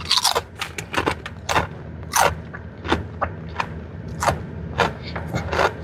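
Chewing a kettle-cooked Cape Cod barbecue potato chip close to the microphone: a string of sharp, irregular crunches.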